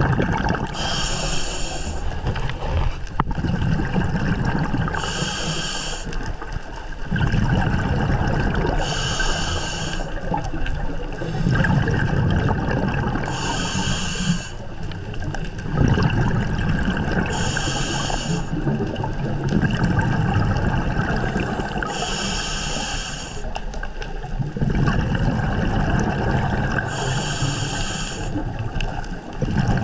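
Scuba diver breathing through a regulator: a short hiss on each inhale about every four seconds, each followed by the low rumble of exhaled bubbles.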